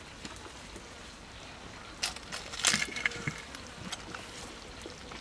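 Clay lid clattering and scraping against the rim of an earthenware cooking pot as it is lifted off: a short burst of sharp clicks and knocks about two seconds in, with a brief ringing of the pottery.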